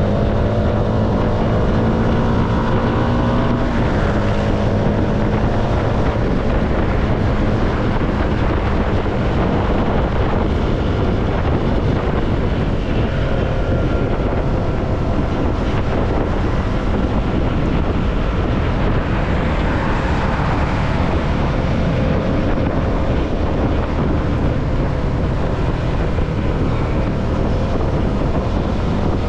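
CFMoto motorcycle engine running steadily under way, its note shifting a few seconds in, with wind rushing over the microphone.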